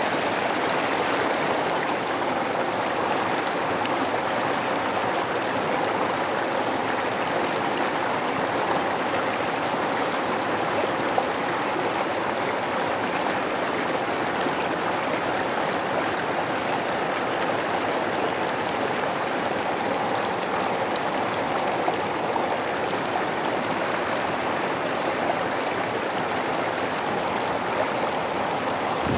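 Rushing river water flowing over rocks: a steady, even noise that does not change in level.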